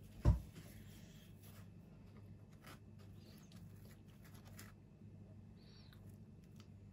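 A dull low thump just after the start, then faint soft scraping and small ticks as a fried doughnut is pressed and turned in a bowl of melted chocolate, over a low steady hum.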